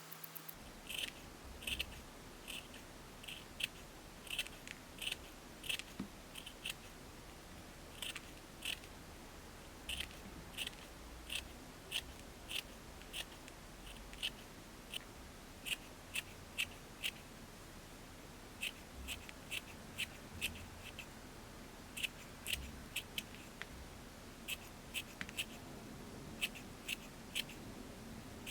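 Scissors snipping over and over, short crisp cuts about one or two a second with a few brief pauses.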